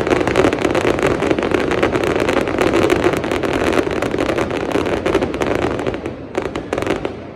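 Fireworks crackling: a dense, rapid string of small bangs and pops that goes on without a break, then thins to a few last cracks and dies away near the end.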